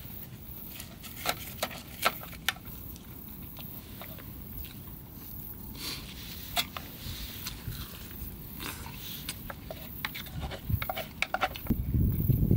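Scattered small sharp clicks and crackles over a quiet low background, a few of them louder than the rest; a loud low rumble builds near the end.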